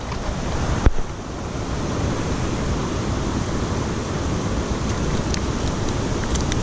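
Steady rushing noise of a flowing creek mixed with wind on the microphone, with one sharp click about a second in.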